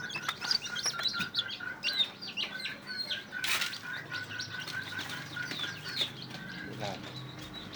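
Day-old ayam kampung super chicks peeping: many short, high, falling cheeps overlapping one another. A faint steady high tone runs behind them and stops about six and a half seconds in.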